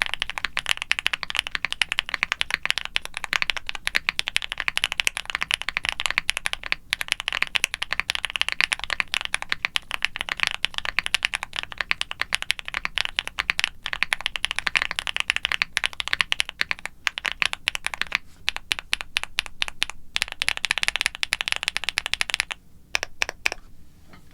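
Fast, continuous typing on a QwertyKeys QK65 mechanical keyboard with factory-lubed Gateron Smoothie linear switches, a polycarbonate plate, full foam and silicone dampening and GMK doubleshot ABS keycaps. The typing stops about two seconds before the end, with a few last single keystrokes.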